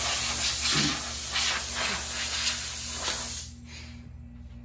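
Compressed-air blow gun hissing in one continuous blast, blowing pollen off a car's side window; it starts abruptly and cuts off after about three and a half seconds.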